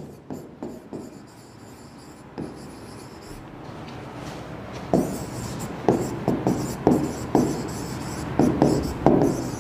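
Pen writing on an interactive board: short scratchy strokes and taps, faint at first and coming thick and clear from about halfway, as a word is written out stroke by stroke.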